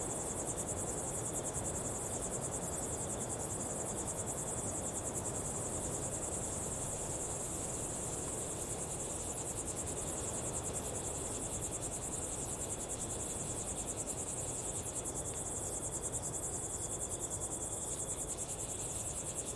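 Daytime insects, cricket-like, trilling steadily at a high pitch with a fast, fine pulse over a low, even background hiss; a fainter, lower insect note fades out about fifteen seconds in.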